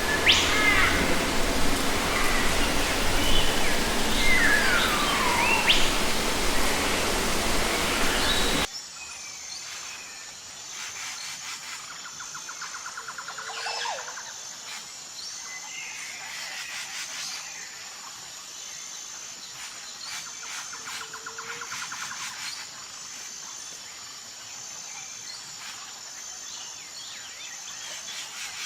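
Wild birds calling, with several gliding whistles, over a loud steady hiss for the first nine seconds. The sound then cuts abruptly to a much quieter background of scattered bird calls and trills, with a faint high tone pulsing about once a second.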